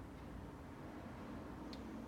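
Quiet room tone with a steady low hum and one faint, short click about three-quarters of the way through.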